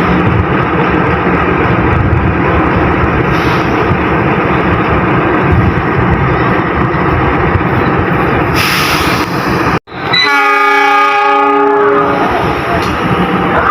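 Passenger train running through a station, with a loud, steady rumble of wheels and engine. About ten seconds in, the sound cuts out for an instant and a train horn sounds for about two seconds before the train noise returns.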